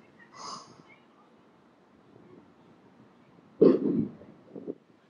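A person gives a loud throat-clearing cough about three and a half seconds in, with a smaller one just after.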